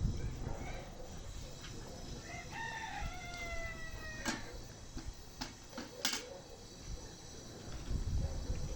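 Rooster crowing once: one drawn-out call that falls slightly in pitch, followed by two sharp knocks.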